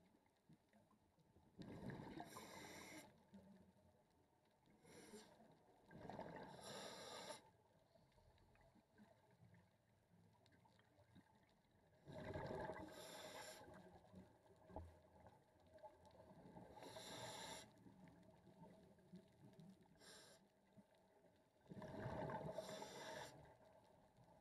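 Scuba diver breathing through a regulator, heard underwater: five bursts of exhaled bubbles each about a second and a half long, coming every four to five seconds, with two short hisses between them.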